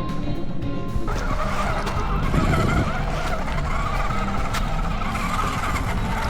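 A 1/10-scale MN Model MN222 RC crawler driving: its small electric motor and gears whine, wavering in pitch with the throttle, over a steady noise. About a second in, the whine cuts in where background music stops.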